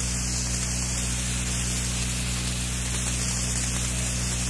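Steady hiss with a low, even hum underneath: the background noise of an old lecture recording.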